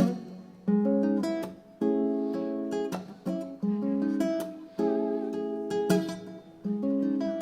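Acoustic guitar strumming chords in an instrumental passage of a song, a new chord struck about once a second and left to ring.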